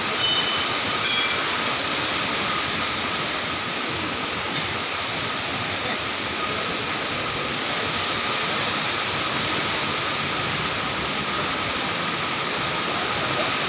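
Heavy rain pouring down in a steady, dense hiss. Two short high-pitched tones sound about a second apart near the start.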